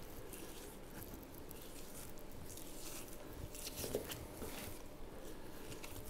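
Faint wet slicing and squishing of a boning knife cutting the fat cap off a raw beef top round while the meat is pulled back by hand, with one slightly louder brief sound about four seconds in.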